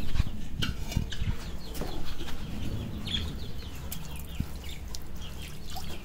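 Birds of a mixed aviary calling, with short chirps scattered all through and a few brief knocks.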